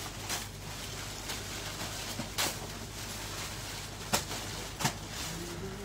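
A few short rustles and knocks as cloth garments are handled and moved on a wooden counter, over a steady low room hum; the two loudest come about two and four seconds in.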